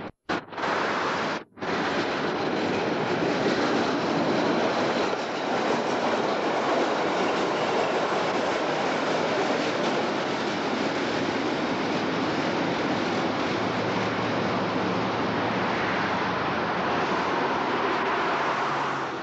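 A tram running along its rails with a steady rumble, after two brief cuts in the sound near the start.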